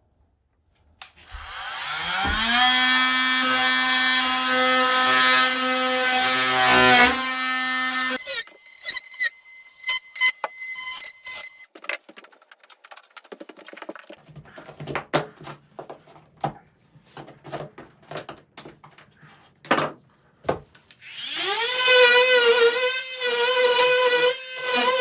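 A handheld power tool's motor spins up, runs steadily for about five seconds and winds down. Scattered clicks and knocks follow, and near the end it spins up and runs again.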